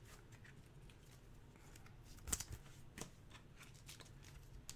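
Faint handling of trading cards being flipped through: a few soft flicks and slides, the clearest a little over two seconds in, with near silence between.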